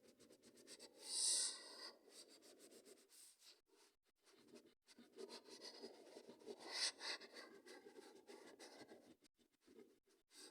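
A pen scratching and rubbing across paper, as when drawing or colouring a paper squishy. There are two brief, louder raspy strokes, one about a second in and one near seven seconds.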